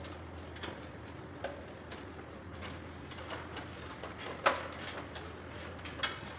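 Scattered small clicks and knocks as hands work on the plastic housing and wiring of a wall-mounted split air conditioner's indoor unit. There is one sharp knock about four and a half seconds in and a smaller one near six seconds, over a steady low hum.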